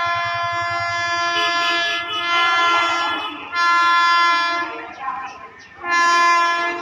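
Approaching train's horn sounding three blasts at one steady pitch: a long blast of about three seconds, then two shorter blasts of about a second each.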